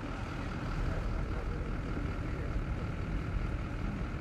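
A car or truck engine idling steadily, a low rumble: the vehicle that will pull the tower up on its tying wire.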